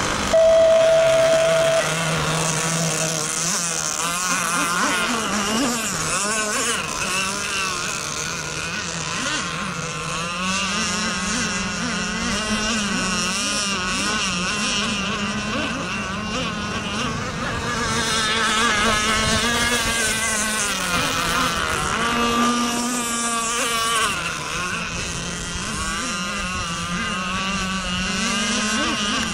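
Radio-controlled model racing boats running flat out on open water, their motors giving a continuous high whine that wavers up and down in pitch as they throttle and pass. About half a second in, a short, loud steady tone sounds for a little over a second.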